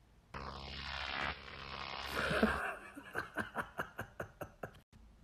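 Edited-in comedy sound effect: a hiss with a pitch that falls steadily for about a second, then a run of short quick bursts, about five a second, that fade out.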